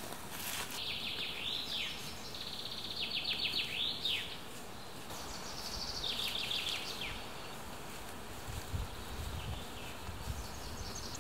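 A small songbird singing three short, high trilled phrases, each a quick run of repeated notes ending in a downward flourish. Near the end come a few soft low thuds as clumps of moss are pressed onto the shelter by hand.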